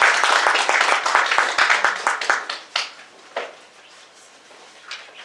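Audience applauding, the clapping loud at first and dying away about two to three seconds in, leaving a few scattered knocks.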